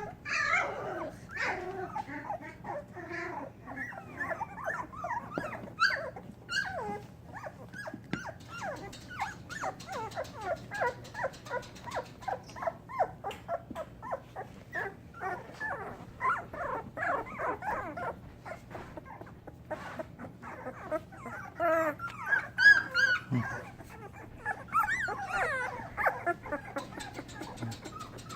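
A litter of puppies whimpering and squeaking, many short high cries overlapping several times a second, with a louder cluster of yelps about three-quarters of the way through.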